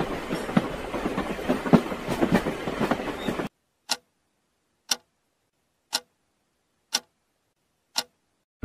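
A dense, irregular crackle that cuts off abruptly about three and a half seconds in, followed by five sharp, evenly spaced ticks about a second apart over dead silence, like a clock ticking.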